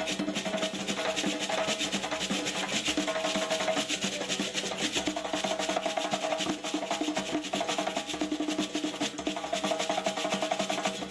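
Traditional Liberian dance drumming: hand drums played fast and dense, with strokes in a rapid, unbroken stream.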